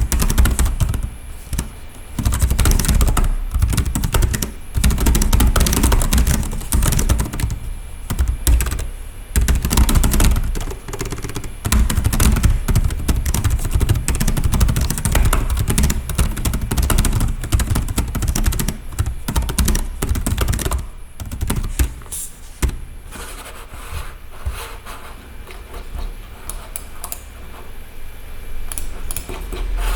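Keys of a Jooyon CarryBook T Pro laptop keyboard being typed on in quick runs with short pauses. Near the end the typing thins out to scattered keystrokes.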